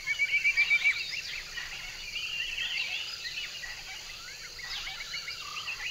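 Forest ambience: a quick trill of short chirping notes in the first second, then scattered bird chirps and whistles over a steady high insect hiss.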